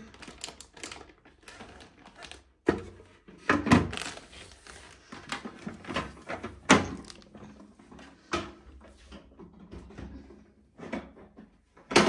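Hard plastic makeup organizer case being closed and handled: its clear hinged lid swings shut, followed by a series of sharp plastic knocks and clacks, several of them loud.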